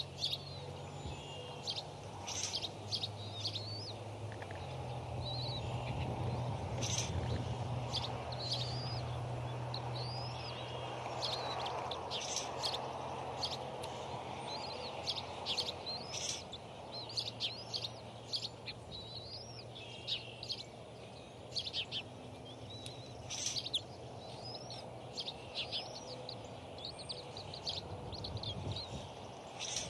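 Many short, high-pitched bird chirps and calls, some rising and some falling in pitch, over a steady low hum and a background hiss.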